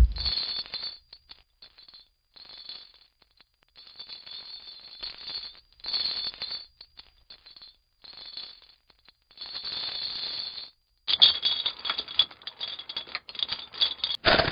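A metal chain rattling and dragging over a hard floor in a series of bursts with short gaps between them. The rattling becomes denser and louder about eleven seconds in.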